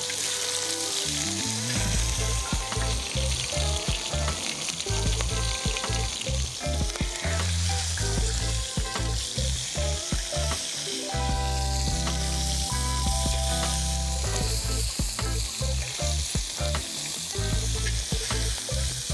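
Bone-in pork steaks frying in oil in a cast-iron sadj pan over very hot charcoal, with a steady sizzle. Metal tongs clink and scrape now and then as the meat is turned.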